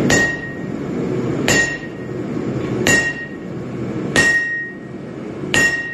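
Sledgehammer blows on red-hot steel lying on an anvil, hand-forging a cleaver blade: five heavy strikes about a second and a half apart, each with a short metallic ring from the anvil. A steady low rumble runs underneath.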